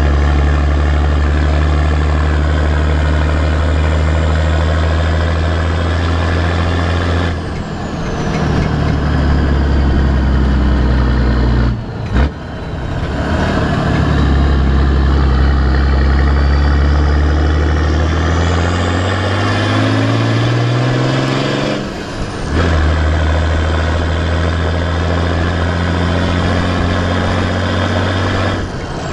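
Exhaust of a Nissan TD42 4.2-litre inline-six turbo-diesel with a T3/T4 turbo and a 3-inch exhaust with one small muffler, heard close at the tailpipe while driving. It drones steadily and dips briefly at gear changes. In the middle the note climbs under acceleration with a rising turbo whistle, which cuts off at the next shift.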